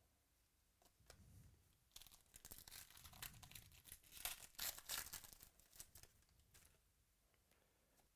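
Foil trading-card pack being torn open by hand, its wrapper crinkling and tearing for a few seconds, loudest about four to five seconds in.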